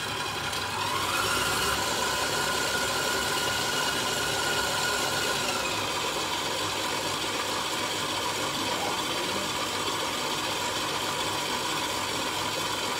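Electric bowl-lift stand mixer running, its motor whining and the beater churning a thick butter-and-sugar mix. The whine rises about a second in as the speed is turned up, and shifts again around six seconds in.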